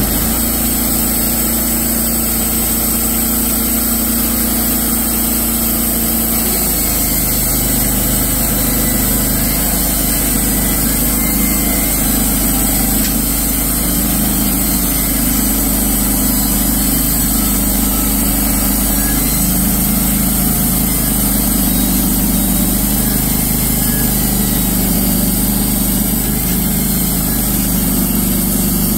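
Wood-Mizer LT15 portable band sawmill's gasoline engine running steadily. About six seconds in its low note changes and then wavers as the band blade saws through a loblolly pine log.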